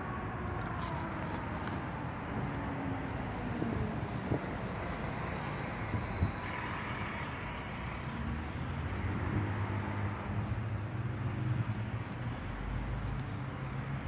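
Road traffic: vehicles passing, with an engine tone falling in the first few seconds and a steady low engine hum in the second half, over a wash of road noise.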